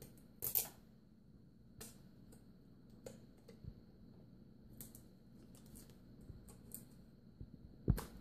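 Scattered small clicks and taps of plastic laptop parts being handled while the screen's ribbon cable is pulled straight down out of its connector. The louder clicks come about half a second in and near the end.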